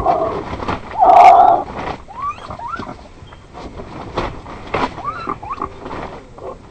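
An unidentified animal calling: two loud, harsh cries in the first two seconds, then a run of short squeaky calls that sweep up and down in pitch, with scattered clicks.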